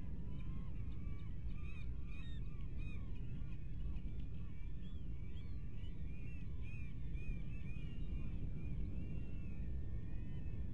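A flock of birds calling, many short calls overlapping one another without pause, over a steady low rumble.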